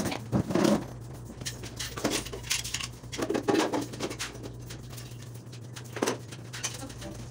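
Scattered clinks and knocks of hard objects over a steady low hum.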